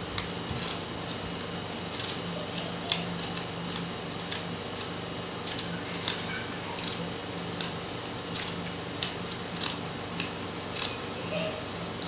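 Clear plastic bottle crackling while decorative tape is pulled and pressed around it, heard as an irregular string of short crinkles and ticks. A steady low hum runs underneath.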